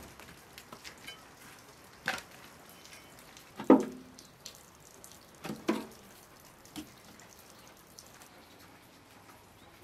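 Wooden firewood sticks knocking against a sheet-metal barrel stove as they are pushed into its firebox opening: a handful of separate clunks, the loudest about four seconds in with a short ring. Light rain patters throughout.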